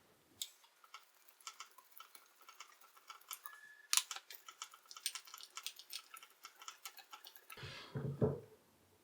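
Phillips screwdriver backing out the stock screws of a Winchester SXP shotgun: a run of faint, irregular small clicks and ticks, with one sharper click about four seconds in and a duller handling thump near the end.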